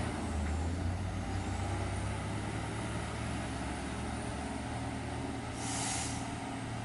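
Loaded Iveco dump truck's diesel engine running steadily as it pulls away, slowly fading. A short hiss of air about six seconds in.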